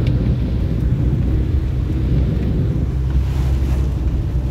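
Mitsubishi Shogun 4x4 ploughing through deep floodwater, heard from inside the cabin: a steady low drone of engine and water, with the rush of spray thrown against the body and windscreen.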